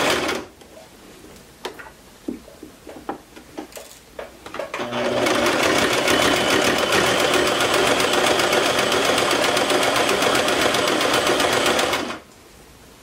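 Inexpensive Singer domestic sewing machine sewing a stretch stitch. It stops just after the start as it reaches a heavy seam, and a few soft clicks follow. About five seconds in it runs again with rapid, steady stitching for about seven seconds, then stops near the end.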